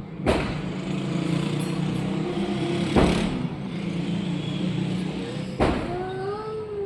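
A domestic cat's low, steady growl, in short spliced clips with sudden cuts, followed near the end by a single meow that rises and then falls.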